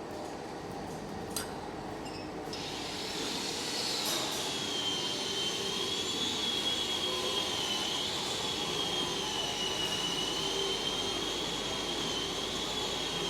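Factory workshop machinery running: a steady mechanical noise, joined about three seconds in by a high whine that wavers slightly in pitch.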